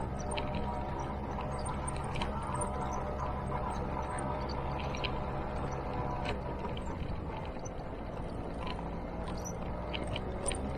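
Motor scooter engine running steadily while riding, with scattered short ticks over it.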